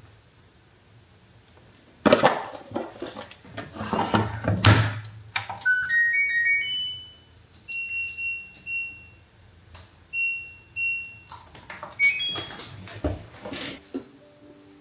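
A household appliance's electronic control panel playing a short rising chime, then a few single high beeps as its buttons are pressed, between bouts of handling and rustling noise.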